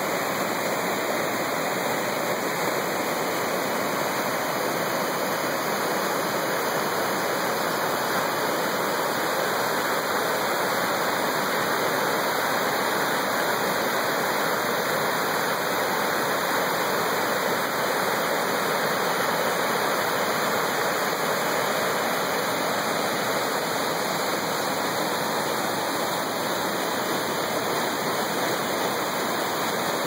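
Waterfall and rapids rushing over rock: a steady, unbroken rush of white water.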